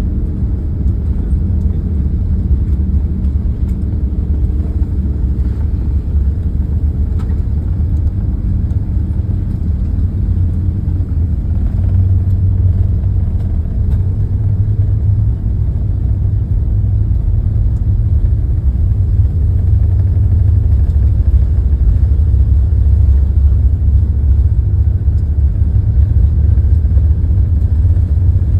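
Cabin noise inside an Airbus A380-800 on its takeoff run: a loud, deep rumble of engines and runway, with a steady low hum over the first eleven seconds. About twelve seconds in the rumble grows heavier and it keeps building slowly as thrust and speed rise.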